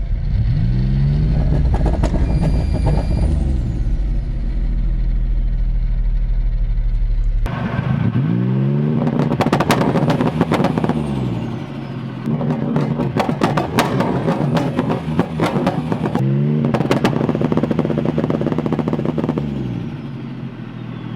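Turbocharged 3.8-litre V6 of a VR Commodore ute brought up onto its two-step launch-control limiter three times, the revs climbing, holding and dropping back each time. While it sits on the limiter there is rapid crackling and popping as it builds boost.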